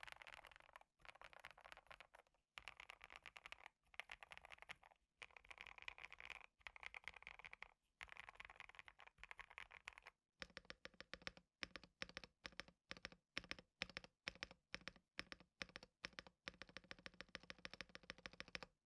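Typing on a KBD67 Lite mechanical keyboard fitted with JWK Epsilon switches, case foam, PE foam and a tape mod. Fast runs of keystrokes are broken by short pauses, and from about halfway they give way to slower, separate key presses.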